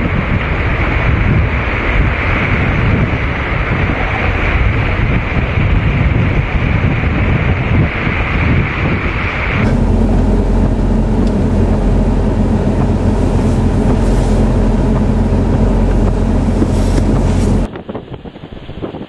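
High storm wind buffeting the microphone, a loud steady rush of noise. About ten seconds in the sound cuts abruptly to a different recording where a steady low hum runs under the wind, and near the end it cuts again to quieter, uneven gusts.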